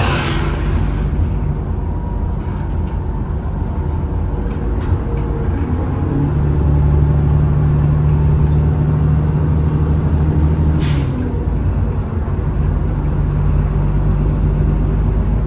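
Alexander Dennis Enviro 400 double-decker bus engine running steadily, its note louder from about six seconds in to about eleven. A short sharp air hiss from the air brakes comes about eleven seconds in.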